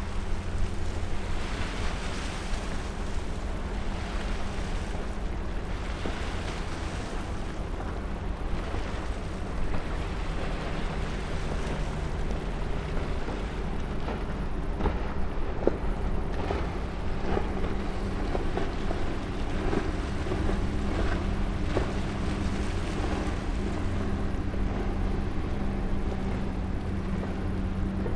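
Low, steady engine drone of a passing oil/chemical tanker, a deep rumble with a steady hum over it.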